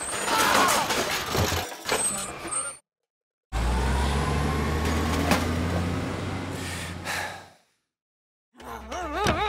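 Sound effects of a toy dump truck tipping out its load: a hiss with a clatter of tumbling bricks. After a brief silence comes a steady rumble with a low hum for about four seconds, and after another pause music starts near the end.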